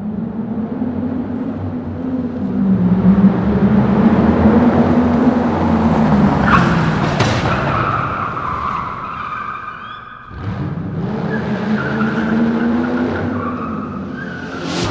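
A vehicle engine revving up and down, with a high tyre squeal starting sharply about six and a half seconds in. After a brief drop near ten seconds, the revving and squealing come back.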